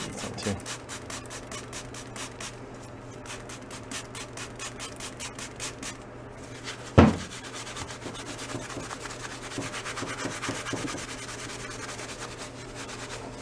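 Steel-wool soap pad scrubbing the corroded alloy side case of a Jawa 350 engine, first in quick rhythmic strokes about four a second, then in a steadier rubbing. A single loud knock about seven seconds in.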